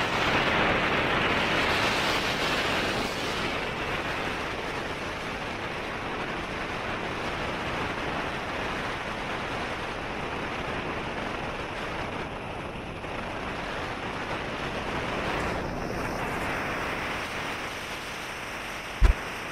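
Sea waves washing on a shore, a steady rush that swells and ebbs. A brief low thump sounds near the end.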